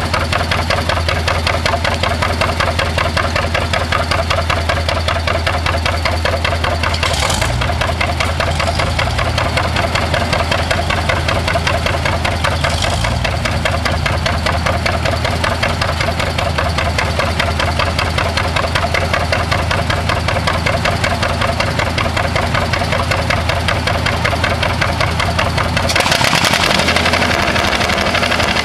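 John Deere G's two-cylinder engine running with a steady, even popping beat. A louder, harsher noise joins near the end.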